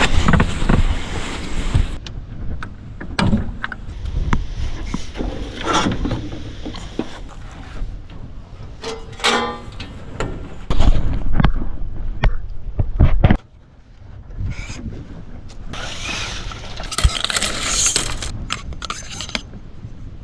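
Wind buffeting the microphone, with scattered knocks and scrapes from a kayak and gear being handled, and a short squeaky pitched sound about nine seconds in.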